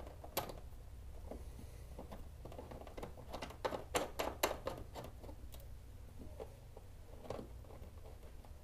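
Light clicks and taps of metal parts as a small screwdriver lines up the bolt holes of a hood strut bracket. The clicks are scattered, with a quick run of sharper ticks about halfway through.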